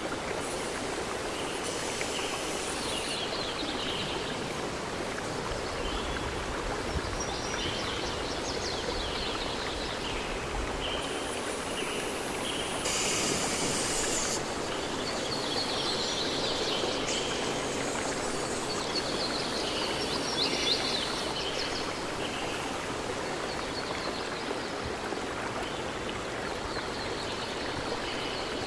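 Steady rushing noise like a flowing stream, with birds chirping now and then and a brief louder hiss about halfway through.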